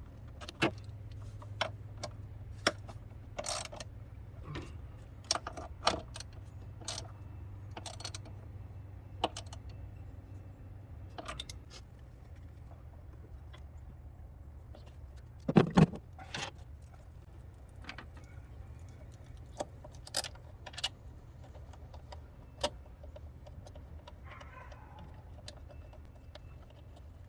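Scattered light metallic clicks and clinks of hand tools and engine parts being handled, with one louder knock about 16 seconds in, over a steady low hum.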